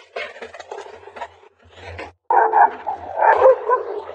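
Several dogs barking loudly at each other, starting suddenly about two seconds in.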